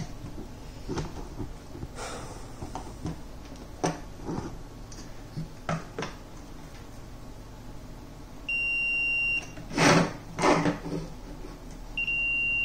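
Fluke 325 clamp meter's continuity beeper giving two steady high beeps of about a second each, near the end, as the test probes find a short across the power supply's output. Light knocks from the probes and circuit board are scattered throughout, with two louder thumps just after the first beep.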